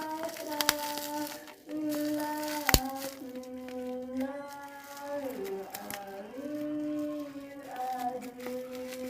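A high voice humming or singing a slow tune, holding each note for about a second before stepping to the next. Sharp clicks and light crinkling of packaging come through it, the loudest click a little under three seconds in.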